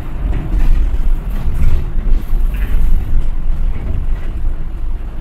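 City bus heard from inside the cabin while driving: a steady low rumble of engine and road noise.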